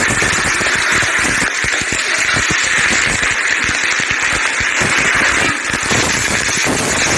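Eggs frying in hot oil in an iron wok, a steady loud sizzling hiss, with a steel ladle scraping and knocking against the wok many times. About six seconds in, noodles and shredded vegetables are tossed into the wok.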